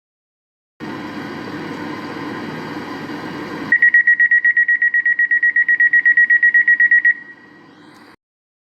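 Door-closing warning beeper sounding a rapid high-pitched beep, about ten beeps a second for some three seconds, after a few seconds of steady hum. The beeping stops suddenly and leaves a fainter sound for about a second.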